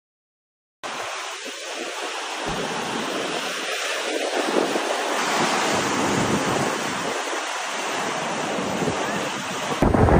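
Rough sea surging and breaking on rocks in strong wind, a steady rushing wash that starts about a second in. Near the end it cuts to louder, rumbling wind buffeting the microphone.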